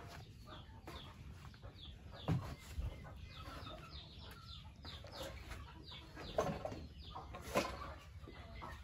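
Chickens clucking with short, scattered calls, heard quietly, with a few louder short sounds among them.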